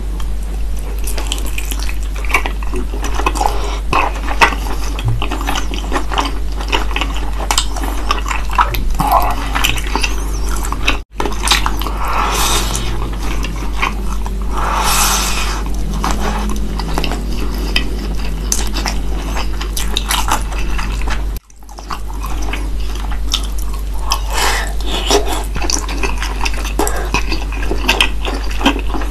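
Close-miked eating sounds: wet chewing and smacking of braised pork belly and rice, with small clicks of chopsticks and a spoon against the rice bowl. A steady low hum runs underneath, and the sound cuts out briefly twice.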